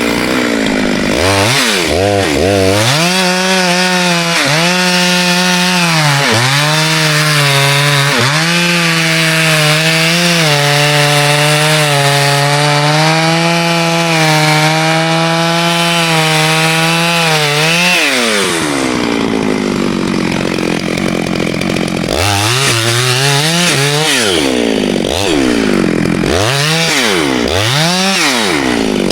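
Two-stroke chainsaw cutting wood, its engine pitch dipping and recovering under load and then held steady at high revs. About two-thirds of the way through the revs fall away, then it revs up and down again in short bursts near the end.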